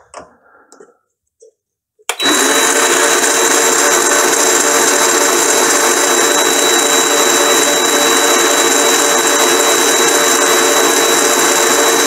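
A Chinese mini lathe is switched on about two seconds in, after a few faint clicks, and runs steadily with its chuck spinning. The motor and drive make a loud, even running sound with a steady high whine.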